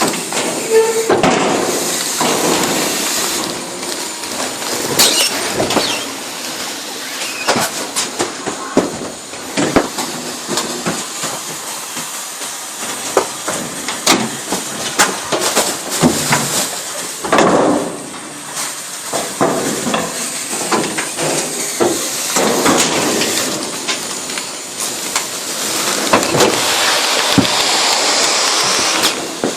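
Garbage truck compactor crushing trash bags, with many sharp pops and cracks as the bags and their contents burst under the packer. A steady hiss rises near the end.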